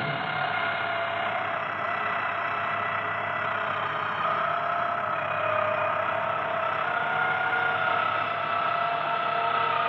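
Experimental noise music from a cassette: a dense, steady wash of noise with several held droning tones, low and high, a few of which shift slightly partway through.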